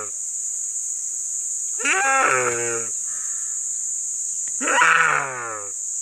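A deer stag bleating in distress as a Komodo dragon eats it alive: two long calls about three seconds apart, each lasting about a second and falling in pitch.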